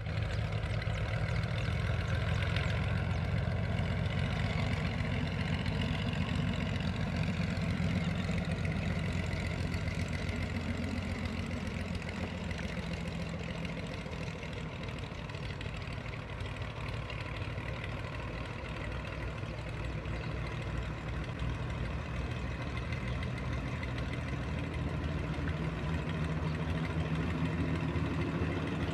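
Beechcraft Baron 58's twin six-cylinder piston engines running at low, idle-like power as the aircraft taxis, a steady low drone that grows a little louder near the end.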